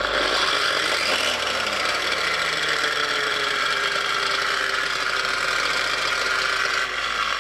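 Parkside PWBS 180 A1 wall and floor sander's 1050 W motor switched on and running with no load, its 180 mm sanding pad spinning in the air. It comes up to speed over the first couple of seconds, then runs steadily, dropping a little in level about seven seconds in.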